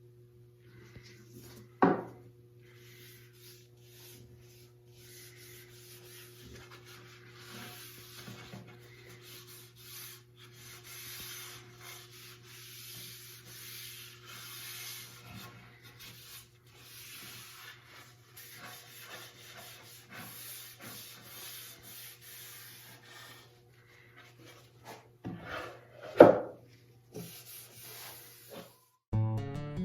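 Wood being sanded by hand with sandpaper, in uneven back-and-forth strokes, with a sharp knock of wood near the start and another, louder one near the end. A steady low hum sits underneath.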